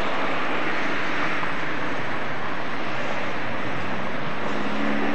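Steady wash of city traffic noise, even and unbroken. A faint low steady hum joins near the end.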